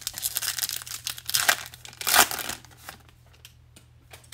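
Foil wrapper of a 2021 Bowman baseball card pack being torn open and crinkled by hand. The crackling is loudest a little after two seconds and stops about three seconds in, leaving a few faint ticks.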